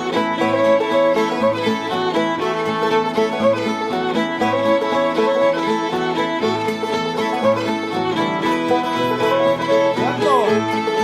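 Old-time string band playing a fiddle tune: two fiddles in unison over banjo, guitar and mandolin, with a steady bouncing beat.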